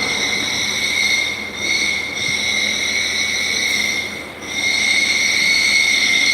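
Metal-cutting CNC machine tool running with a steady high-pitched squealing whine from the cut, dipping briefly twice.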